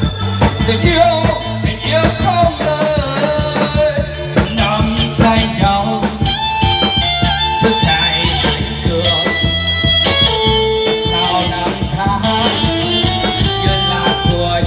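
Live wedding singing over loud amplified band music with a steady bass beat: a man's voice sings through the PA speakers at first, and from about halfway an instrumental melody of held keyboard or guitar notes takes over.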